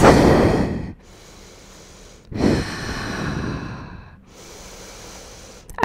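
A woman breathing audibly and slowly while holding a yoga pose: one long breath at the start and another from about two and a half seconds in, with quiet in between.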